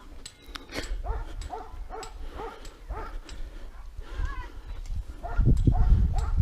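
An animal's short, repeated whining calls, two or three a second, each bending in pitch, with a warbling call about midway.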